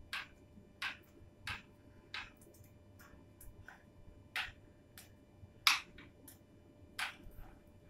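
A practice fire-knife staff spun close to the floor in a middle spin, giving a short sharp swish about every two-thirds of a second, the loudest a little past halfway through.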